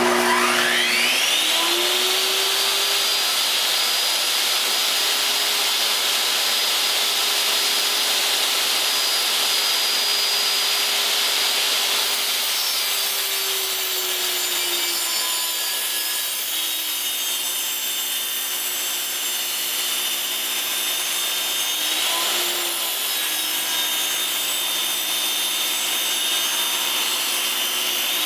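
Table saw switched on, its motor whine rising to full speed over the first two seconds, then running steadily. From about twelve seconds in it rips a board lengthwise, the whine dropping in pitch as the blade takes the load, with a brief rise and fall again about 22 seconds in.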